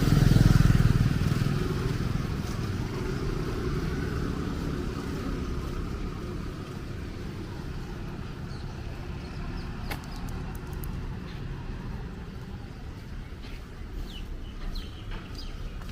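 A motor vehicle passing close by on a wet road, loudest about half a second in and fading over the next few seconds into a steady background traffic rumble.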